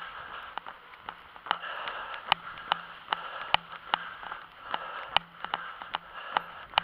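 A runner's footfalls on paved sidewalk, a sharp knock about two and a half times a second, over a steady hiss.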